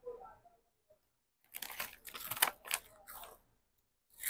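Faint crinkling of a plastic snack wrapper being handled: a cluster of short crackles from about a second and a half in, fading out a second or so before the end.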